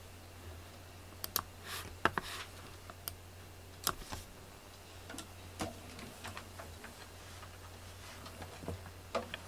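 Faint, irregular clicks and light taps of a computer mouse being clicked and handled, a dozen or so spread unevenly, over a low steady hum.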